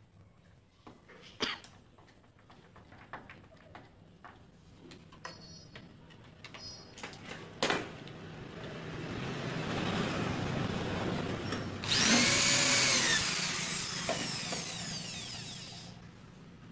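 A few light clicks and knocks, then a handheld corded electric drill runs, boring into the wooden cabinet door for the hinge screws. Its motor whines louder in the last few seconds and stops near the end.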